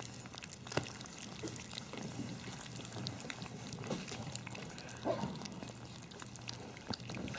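Havanese puppies eating wet food from a stainless steel bowl: wet smacking, lapping and chewing, with scattered small clicks.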